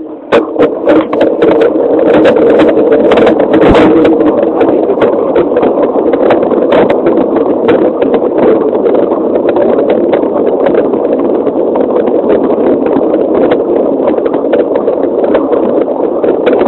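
Mountain bike riding fast downhill on a rough dirt trail: a loud, steady rush of wind and tyre noise with many sharp knocks and rattles from the bumps, thickest in the first few seconds.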